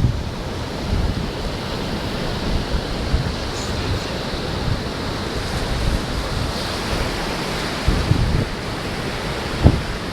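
Ocean surf washing on the beach, with wind buffeting the microphone and a brief low thump near the end.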